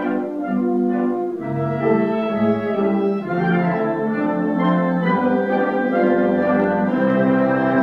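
Concert band of brass and woodwind playing held chords that change every second or so.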